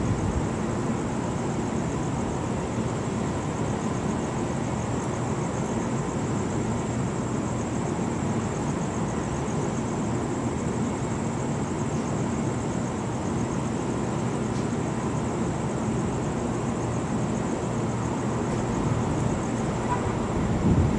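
Steady low rumble of distant city traffic, with a brief louder low rumble near the end.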